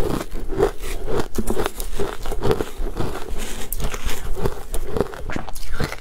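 A metal spoon digging and scooping through crushed ice in a stainless steel bowl, with a dense run of crunching and crackling.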